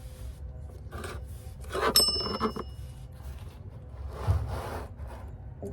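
Rubbing and scraping of tools and parts being handled, with one sharp ringing metallic clink about two seconds in.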